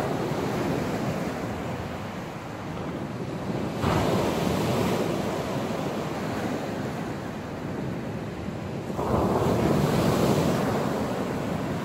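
Choppy sea surf breaking on the beach: a steady wash of waves, with two waves crashing in more loudly, about four and nine seconds in.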